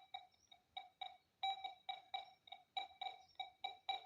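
Metal detector giving short beeps on one steady electronic tone, irregular and about four a second, as it responds to metal under the search coil.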